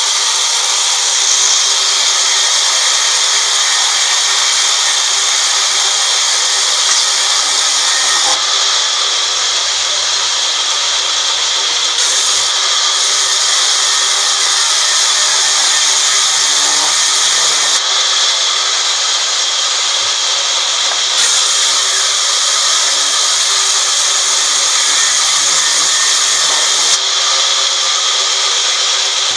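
Sawmill band saw ripping a teak plank lengthwise: a steady high hiss of the blade cutting through the wood over a constant machine hum.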